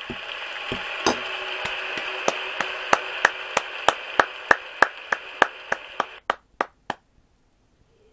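Hand claps at a steady pace of about three a second. A steady rushing noise runs under them and stops abruptly about six seconds in, leaving the last few claps on their own.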